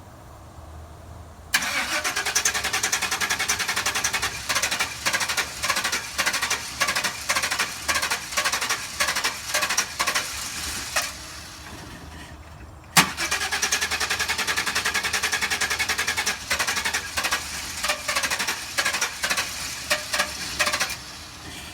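Chevrolet Express 3500 van's starter cranking the engine in two long attempts of about nine and eight seconds, with a sharp click at the start of the second. The engine turns over rapidly and evenly but does not catch: it cranks but won't start.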